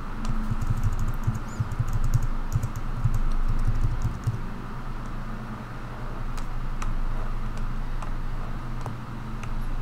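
Computer keyboard keys tapped repeatedly, a quick run of taps in the first few seconds, then scattered single taps, over a steady low hum.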